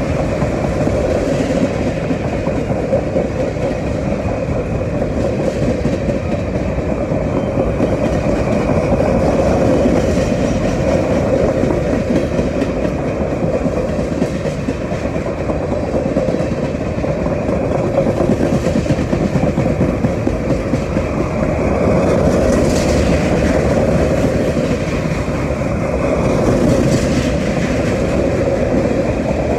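Freight train of high-sided open-top cars rolling past, a steady rumble and clatter of steel wheels on the rails.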